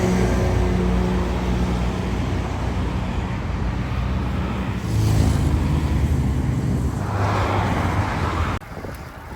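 Motor vehicle engine and road noise, a steady low rumble with an engine hum, growing louder for a moment about five seconds in and again later, then cutting off suddenly near the end.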